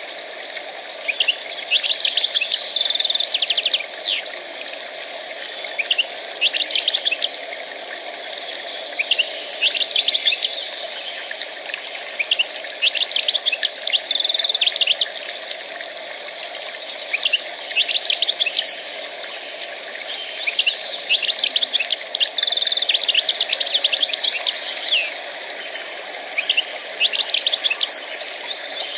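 A songbird singing phrase after phrase of quick, trilling notes, each phrase lasting a second or few with short pauses between, over a steady low background noise.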